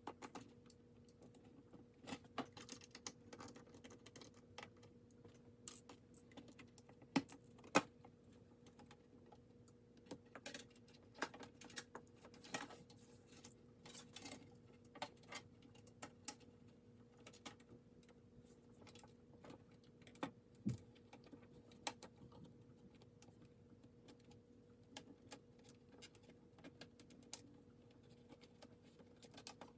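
Faint, irregular clicks and taps of a ThinkPad T41 laptop's plastic casing and parts being handled and taken apart, over a steady low hum.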